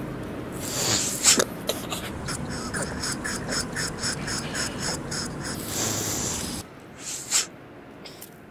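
A person snorting up the nose: a run of quick repeated sniffs, about three a second, with a loud sharp snort about a second in and another near the end.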